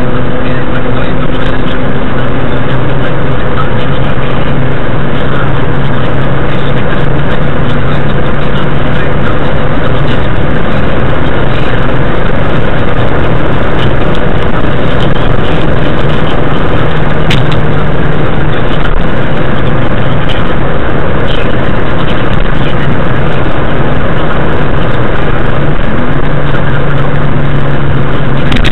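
Steady drone of a car cruising at motorway speed, heard inside the cabin. A constant low engine hum runs over tyre and wind noise, loud and unchanging.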